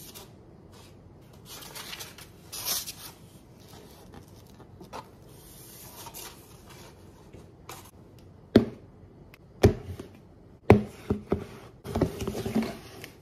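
Soft rustling and scraping of hands handling barbecued ribs on a plate. Then come several sharp knocks and a short clatter as plastic food containers are set down on a wooden countertop, the loudest knocks in the last third.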